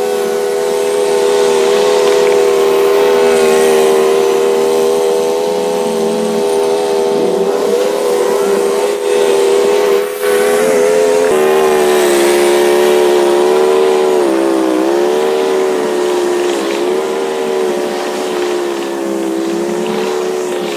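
A 32-inch commercial stand-on mower's engine running steadily under load while mowing thick grass, its pitch sagging briefly and recovering a few times, most clearly about two-thirds of the way through.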